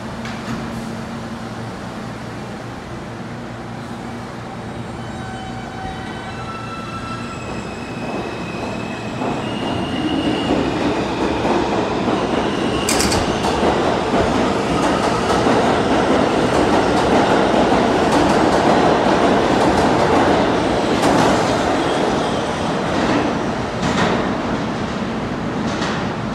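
R160 subway train with Siemens propulsion pulling out of the station. Its motors give a whine that steps up in pitch as it starts to move, then the cars rumble past with sharp clacks over the rail joints, louder as it gathers speed.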